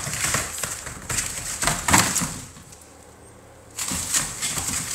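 American Bully puppies scrabbling about in wood shavings on a plastic paddling-pool floor: irregular rustling and clicking of claws and shavings, with a short lull about two and a half seconds in.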